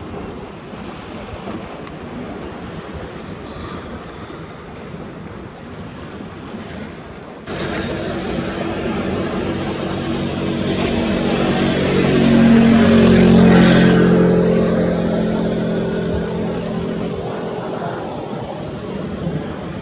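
Sea waves washing with a steady rush of noise. Partway through the sound steps up abruptly, and an engine drone swells, peaks about two-thirds of the way in, dips in pitch and fades as it passes by.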